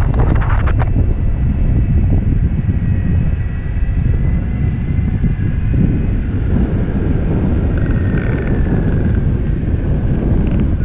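Wind buffeting the microphone over the rumble of an Evolve electric longboard's all-terrain wheels rolling along, with a faint high whine that drifts slightly in pitch.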